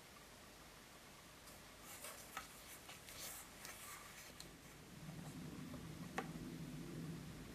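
Small plastic spoon stirring and scraping damp toy powder dough in a small plastic cup: faint, scratchy rubbing, with a light click about six seconds in and a low hum in the second half.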